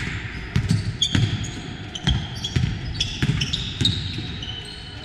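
Basketball bouncing on the court amid players' sneakers squeaking, a run of irregular thuds mixed with short, high squeaks.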